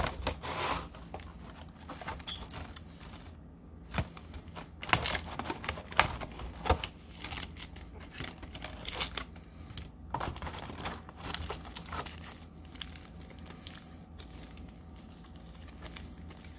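Clear plastic packaging and foil booster packs crinkling, crackling and snapping as they are handled and pulled out of a trading-card box's plastic insert, in irregular bursts that thin out near the end.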